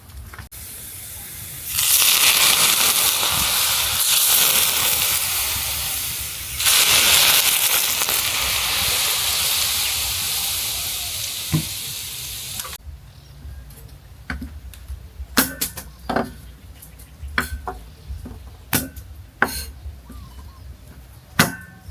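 Food sizzling loudly in a hot pan, flaring up about two seconds in and again a few seconds later, easing a little, then stopping abruptly; light clicks and knocks follow.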